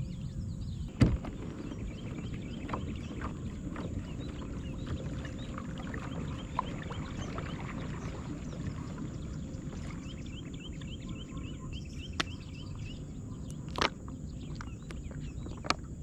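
Sounds of fishing from a kayak on the water: a steady low noise with two sharp knocks, about a second in and near the end. In the last six seconds comes a fast run of short high chirps, several a second.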